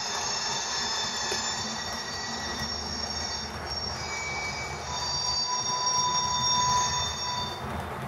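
Iowa Scaled Engineering Squealer sound module playing recorded railway wheel squeal through its speaker, triggered by motion sensors as an HO scale freight train passes through a curve: a high squeal until about three and a half seconds in, a short lower squeal, then another high squeal from about five seconds in that stops near the end. Beneath it, a low rumble of the model train rolling on the track.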